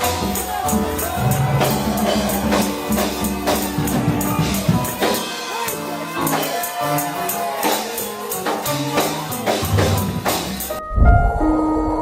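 Gospel praise music with tambourine and drums striking a steady beat under singing and instruments. About eleven seconds in it cuts abruptly to a muffled, bass-heavy held chord.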